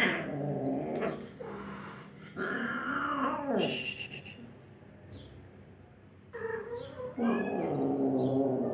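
Cats caterwauling during mating: drawn-out wavering yowls, one sliding down in pitch midway and a long, low one near the end.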